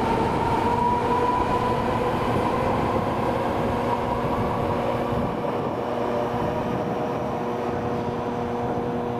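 Osaka Metro 21 series subway train with IGBT-VVVF inverter control pulling away from the platform. The inverter whine rises a little in pitch in the first couple of seconds and then holds as steady tones over the wheel and running noise, growing slightly fainter as the train recedes.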